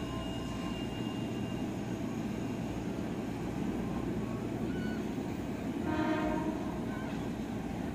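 KRL commuter electric train running past with a steady rumble. A faint high whine fades out within the first two seconds, and about six seconds in the train sounds one short horn blast.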